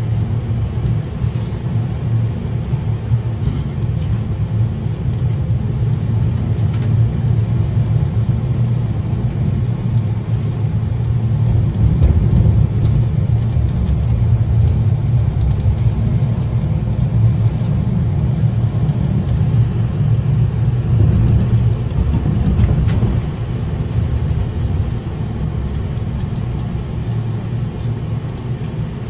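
71-932 'Nevsky' tram running along the track, heard from inside the car: a steady low rumble that swells a little toward the middle and eases slightly near the end.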